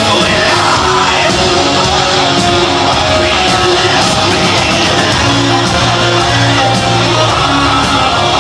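Heavy metal band playing live at concert volume: distorted guitars, bass and drums, with a shouted and sung lead vocal.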